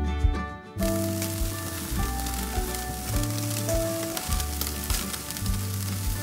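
Pork back ribs sizzling on a barbecue grill grate, starting about a second in, over soft background music.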